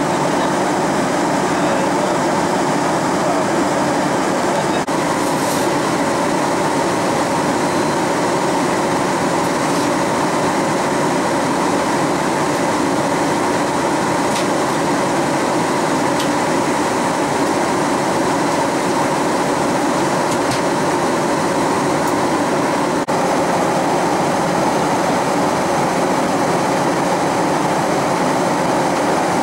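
Steady cabin noise inside a Boeing 737-800 in flight: the rush of air along the fuselage mixed with the hum of its CFM56-7B engines.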